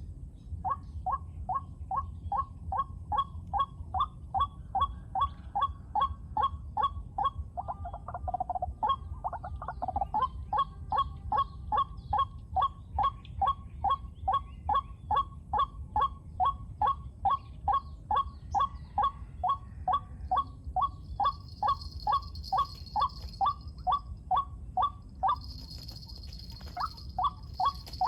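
White-breasted waterhen calling a harsh 'ruak' note over and over, very evenly, about two and a half to three a second. The calls break off briefly twice.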